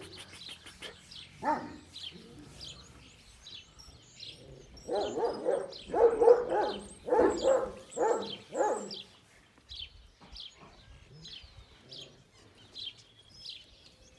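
Kangal shepherd dogs barking: one bark about a second and a half in, then a run of about six barks between about five and nine seconds in. Small birds chirp throughout.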